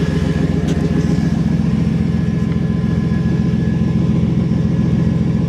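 Old Ford van's engine idling steadily through an exhaust whose tip has been cut off, with a faint steady high tone over the low engine hum.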